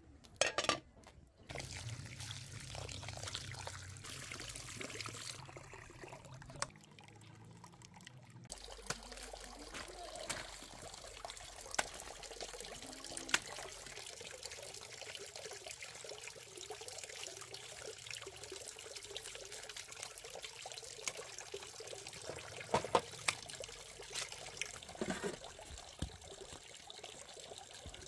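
Water trickling steadily, with scattered sharp clicks of a knife cutting through a cauliflower.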